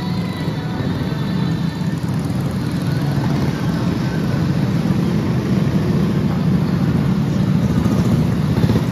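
Several go-kart engines running as the karts come round the track, growing steadily louder as they approach and pass close by near the end.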